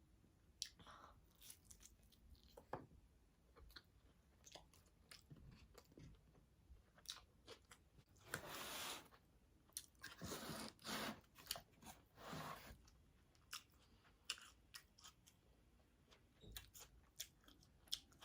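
A person chewing food close to the microphone, faint overall: scattered small mouth clicks, with a few longer noisy chewing stretches around the middle.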